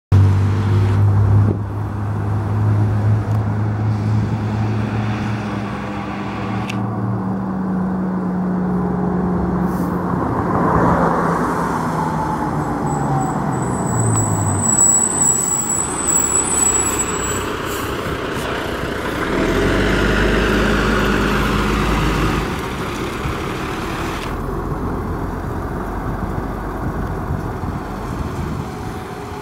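Diesel engines of German fire engines running as they approach and drive past on the street, mixed with passing traffic. A pass-by sweeps in pitch about eleven seconds in, and a thin high whine sounds for a few seconds midway.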